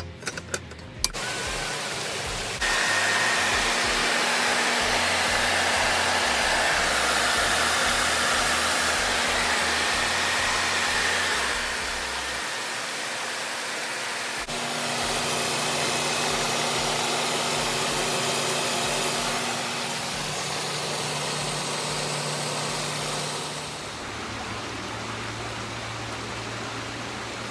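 Viking Spa Legend 2 hot tub running with its jets on: a steady rush of churning water and air over the hum of its 5 hp pump motor. The level steps up about two and a half seconds in and shifts a few times after that.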